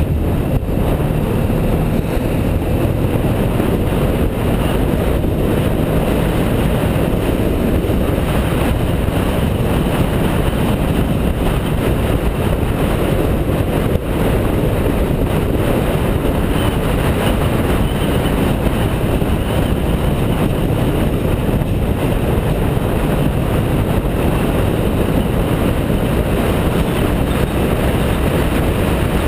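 BMW F650GS motorcycle under way: steady wind rush over the camera microphone, with the engine running underneath.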